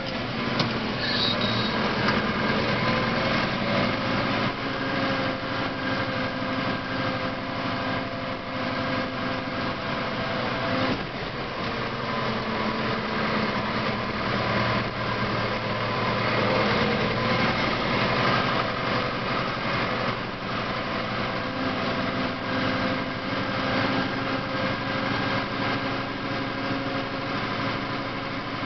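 Deutz DX 4.70 tractor's air-cooled turbo diesel engine running steadily on the road, heard from inside the cab, with small rises and dips in engine speed.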